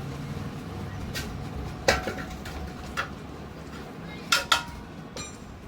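Sharp metallic clinks and clanks of tools and metal parts being handled during a motorcycle service, about six spaced hits, the loudest a pair close together near the end, some ringing briefly.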